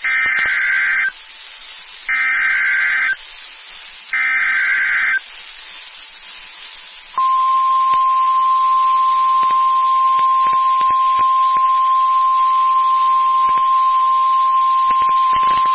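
NOAA Weather Radio emergency alert: three one-second bursts of SAME digital header tones, a second apart, then a single steady 1050-hertz Warning Alarm Tone that starts about seven seconds in and holds. The alert signals a newly issued tornado warning.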